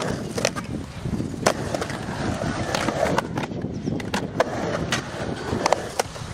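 Skateboard wheels rolling over a concrete park with a steady rumble, broken by several sharp clacks of the board and trucks striking the concrete and coping.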